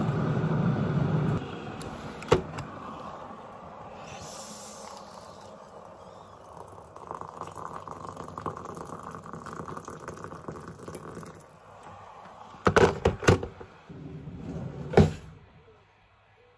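Hot water poured from a kettle into a ceramic mug, a steady splashing fill. Near the end come a few sharp clinks and knocks.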